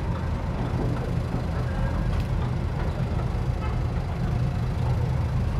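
A steady low engine rumble that holds an even level throughout.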